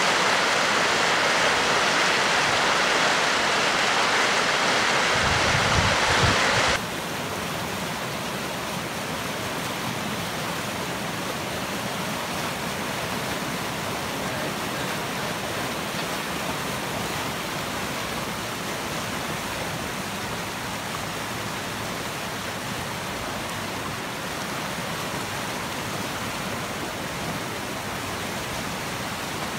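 Muddy floodwater of a swollen creek rushing steadily past. The noise drops suddenly to a lower steady level about seven seconds in.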